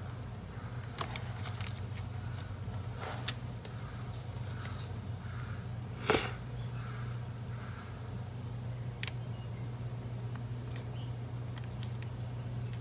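A few small, sharp clicks and taps from the trigger and its spring being worked into place on a Porter Cable FN250C finish nailer, the strongest about six seconds in, over a steady low hum.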